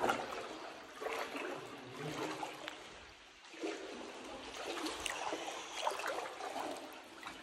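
Shallow water sloshing and trickling in irregular surges about once a second, the splashing of people wading through it.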